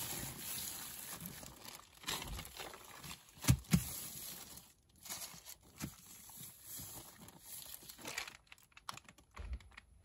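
Paper rustling and crinkling as sheets are handled and sorted, with a few light knocks, the sharpest about three and a half seconds in.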